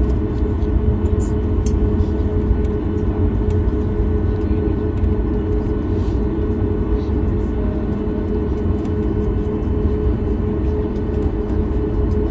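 Boeing 737 MAX 8's CFM LEAP-1B engines running at low taxi thrust, heard inside the cabin as a steady deep rumble while the jet rolls along the runway.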